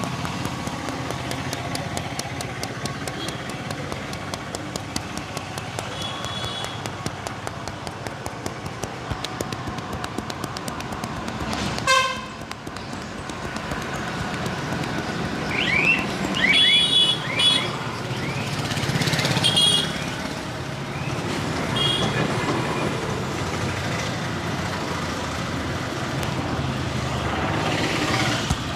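Street traffic noise with vehicle horns: a loud short horn toot about twelve seconds in, then several higher horn beeps a few seconds later. A run of rapid light clicks sounds through the first half.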